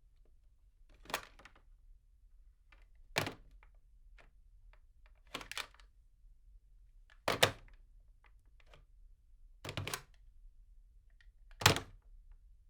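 Desk phone handset being picked up off its cradle and hung up again, heard from a few metres away: six sharp plastic clunks about two seconds apart, some of them a quick double knock.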